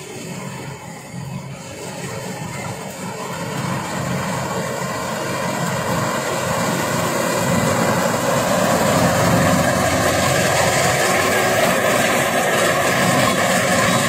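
Kubota DC-93 combine harvester running while it cuts and threshes rice: a steady engine and machinery drone that grows steadily louder as the machine approaches and passes close.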